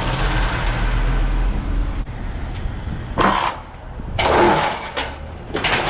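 Chevy Blazer being driven slowly, its engine running under a steady low rumble of road noise. After about two seconds the rumble drops and a few short, louder sounds follow.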